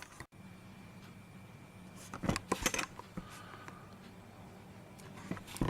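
A few light metallic clicks and taps from small tools and motor parts being handled, in clusters about two seconds in and again near the end, over a low steady hum.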